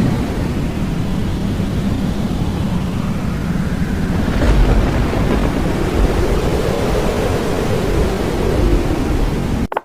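Tornado wind sound effect: a steady rushing wind noise with a deep rumble swelling about halfway through, cutting off suddenly just before the end.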